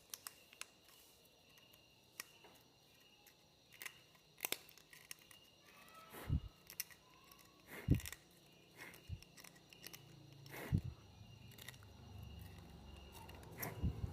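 A small sharp knife nicking and scraping at the dry bamboo of a flute, carving out a finger hole: scattered faint clicks, with a few heavier knocks about six, eight and eleven seconds in.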